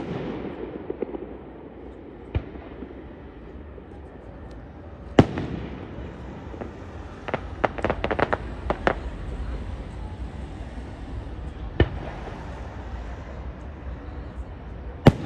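Aerial firework shells bursting: single sharp bangs a few seconds apart, with a quick run of several cracks around the middle and another bang near the end, over a steady low rumble.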